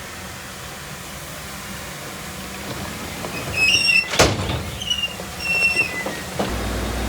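Heavy machinery working. Short, high metallic squeals come in a cluster about three to six seconds in, with one loud clank in the middle. A low engine rumble grows louder near the end.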